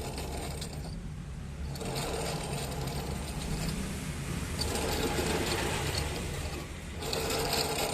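TVS Jupiter scooter running with a rhythmic chirping noise from its CVT drive, a fault the mechanic places in the clutch pulley or the rear wheel.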